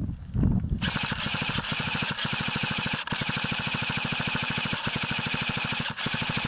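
Airsoft electric gun firing full-auto in one long burst of rapid, even shots with a brief break about three seconds in. It starts and stops suddenly.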